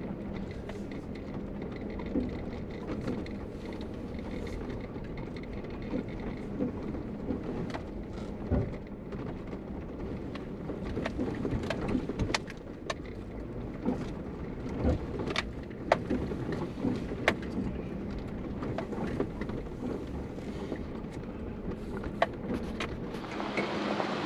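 Jeep Wrangler JK running slowly over a rocky dirt trail: a steady engine and road rumble with frequent sharp knocks and rattles as the tyres and suspension work over the rocks. Near the end, a louder hiss takes over.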